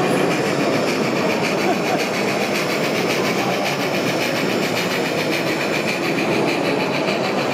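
N-scale model steam locomotive pulling a train of boxcars along the layout's track, a steady running sound over faint background voices.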